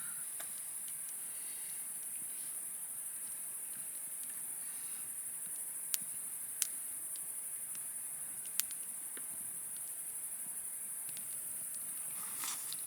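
Steady high-pitched chorus of night insects, with three sharp clicks in the middle and a short rustle near the end.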